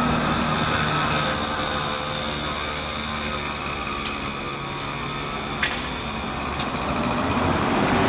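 A small engine running steadily and close by, its hum holding at one level throughout, with a couple of faint light clicks about halfway through.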